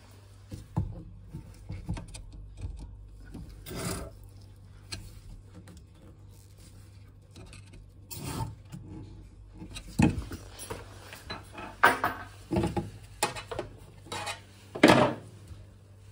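Irregular scraping, rubbing and knocking of hand work under a kitchen sink: a screwdriver turning newly fitted isolation valves open, with the loudest knocks in the second half.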